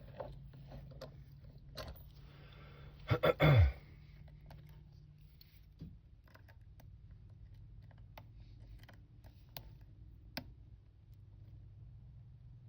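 Faint, scattered small clicks of a hook pick working the pin stack of an aluminium-bodied Master Lock padlock under a top-of-keyway tension wrench, during single-pin picking. About three seconds in there is a louder burst of rustling and a knock from handling.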